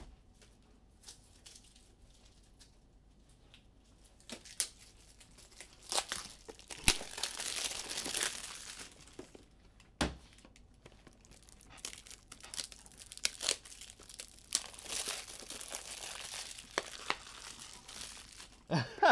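Plastic packaging being crinkled and torn, in two spells of a few seconds each, with scattered sharp clicks and handling knocks between them and a brief louder sound near the end.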